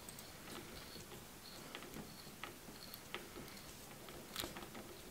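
Hand tap being turned to cut threads in a drilled aluminum block, giving a few faint, scattered clicks and scrapes.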